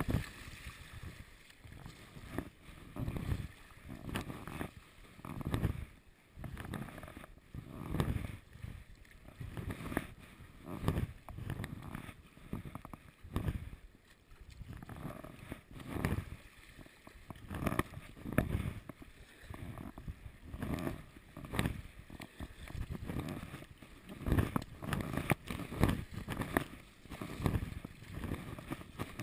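Sea kayak paddled hard through choppy water: paddle blades splashing and waves sloshing against the hull in surges about once a second.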